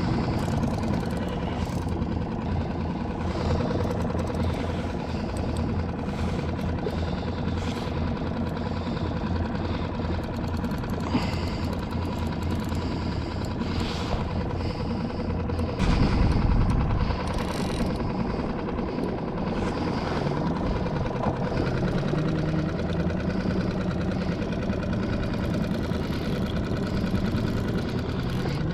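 Small boat motor idling steadily on the skiff, with a low pulsing beat and a few slow rises in pitch about twenty seconds in. A louder low rush of wind or water comes about sixteen seconds in.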